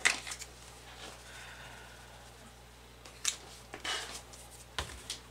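Plastic spice shaker of garlic powder shaken and handled over a steel bowl of shredded chicken: a sharp click, a soft shaking rustle, then a few light plastic clicks and knocks.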